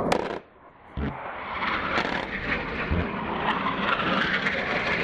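Military jet flying over a mountain valley, a steady rushing engine noise. It cuts out abruptly about half a second in, then comes back and grows a little louder.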